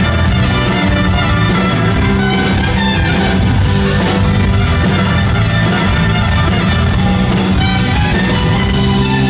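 Live rock band playing an instrumental passage at a steady, loud level, with strummed acoustic guitar, electric guitar, drums and a trumpet.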